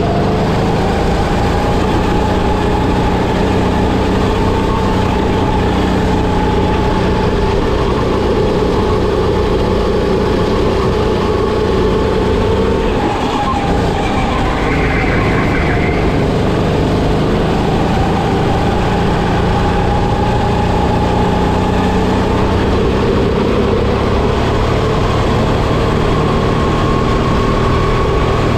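Kart engine heard from the driver's seat, running under load with its pitch climbing slowly as it gathers speed. It dips as the driver lifts off for a corner about 13 seconds in, then climbs again.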